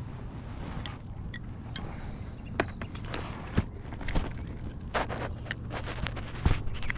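Fishing tackle and kayak being handled while a small bass is landed: scattered light clicks, knocks and scrapes over a steady low hum.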